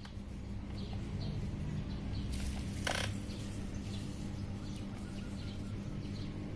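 Small birds chirping over a steady low hum, with one brief, louder harsh sound about three seconds in.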